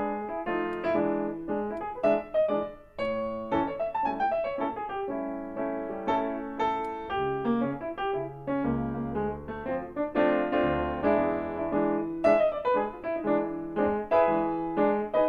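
Background piano music: a steady flow of struck notes in quick succession, with deeper bass notes joining about eight to eleven seconds in.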